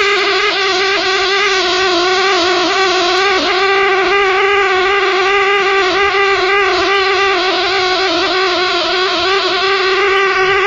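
A continuous, loud, steady pitched drone with many overtones, wavering slightly in pitch. It is a sound the recorder picks up but that is not heard by ear in the room, and which the uploader likens to a pig squealing.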